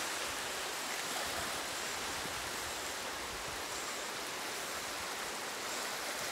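Steady rushing of running water, even and unbroken.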